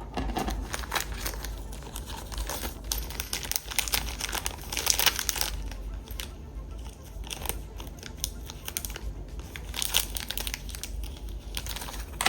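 Small plastic parts bag crinkling and rustling as screws are picked out of it by hand, with scattered light clicks.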